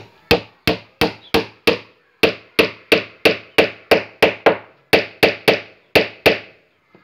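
Claw hammer striking the inside of a wooden boat hull: about twenty sharp blows, roughly three a second, each with a short ringing tail, with a brief pause about two seconds in and the blows stopping near the end.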